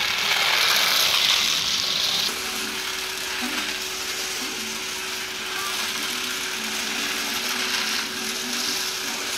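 Battery-powered Twister Tracks toy cars running on plastic track: small electric motors and gears whirring and rattling. It is loudest for the first two seconds as a car passes close by, then it settles to a steadier, quieter whir.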